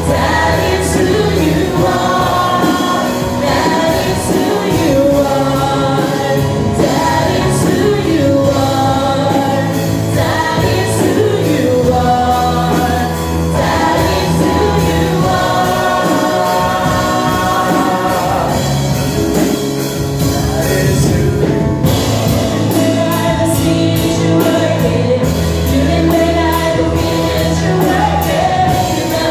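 Gospel worship song: a group of voices singing over instrumental accompaniment with sustained bass notes.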